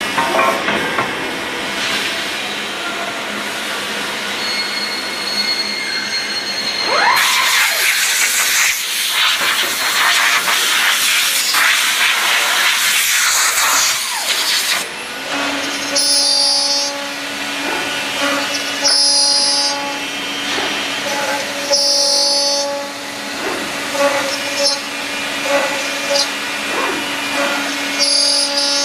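CNC aluminium profile machining centre at work. A loud hiss fills the first half, then a steady machine hum sets in with short, high-pitched cutting bursts repeating every couple of seconds.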